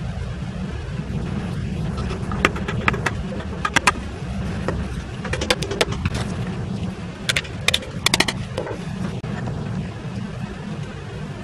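Light clicks and taps of small wooden pieces and a plastic glue bottle being handled on a workbench, coming in small clusters. Under them runs a steady low rumble.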